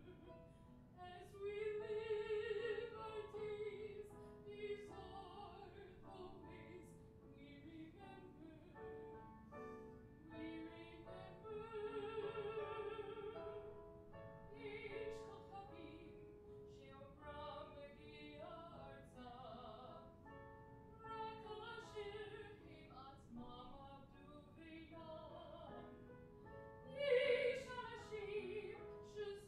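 A woman singing solo in a classical, operatic style, holding long notes with vibrato, phrase by phrase, swelling to her loudest near the end.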